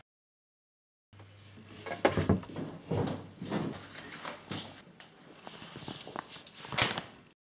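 About a second of dead silence, then a string of knocks and clatters from things being handled at home, over a faint low hum. The loudest knocks come about two seconds in and near the end, and the sound cuts off abruptly into silence.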